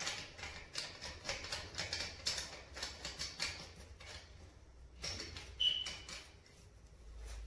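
Small brass tap fitting being screwed back into place by a gloved hand: quick light metal clicks and scrapes, with a short high squeak about five and a half seconds in.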